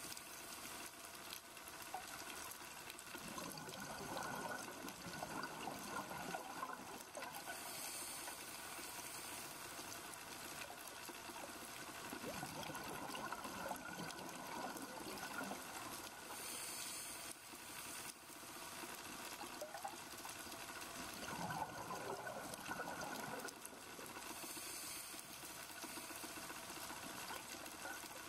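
Diver breathing through a scuba regulator underwater: about three breaths, each a short hiss of inhalation followed by a few seconds of bubbling exhalation.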